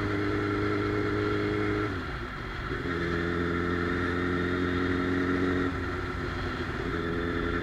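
Motorcycle engine running steadily while riding. The engine note dips briefly about two seconds in, then settles again, and drops a little near six seconds.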